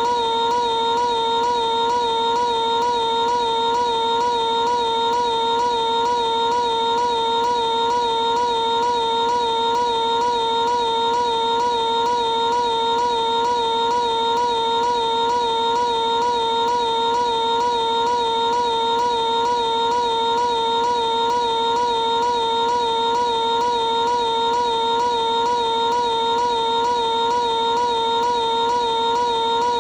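Piglet's high-pitched cartoon voice screaming, stretched into one continuous held note with an even, rapid wobble in pitch and no breaks.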